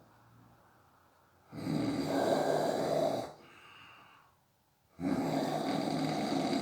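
A sleeping person snoring: two long snores, one about a second and a half in and another starting about five seconds in, with a quieter breath out after the first.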